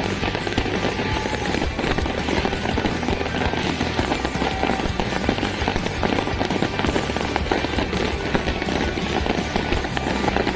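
Fireworks popping and crackling densely and without a break, mixed with music.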